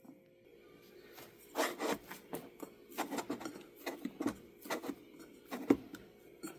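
About a dozen irregular rubbing strokes of dough being worked against a surface.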